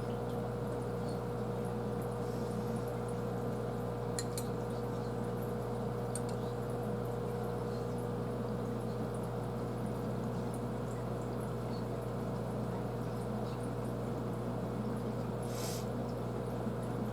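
Aquarium filter running: a steady hum with water splashing and trickling into the tank.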